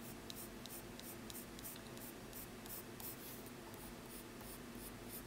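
Graphite pencil sketching on drawing paper: light, quick scratchy strokes, about four a second.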